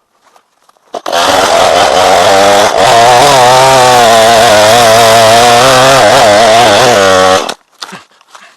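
Chainsaw running at high revs, its pitch wavering up and down as it works under load. It starts abruptly about a second in and cuts off suddenly near the end, with a few faint clicks before it.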